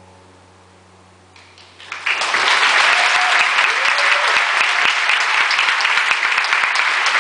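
The song's last note dies away. About a second and a half in, a few scattered claps start, and they quickly swell into full, steady applause from the concert audience.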